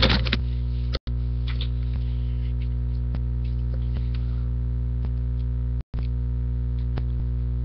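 Steady electrical mains hum with a buzzy stack of overtones, over faint clicks and snips of scissors cutting the tape and cardboard of a box. The sound drops out completely twice, briefly, about a second in and near six seconds in.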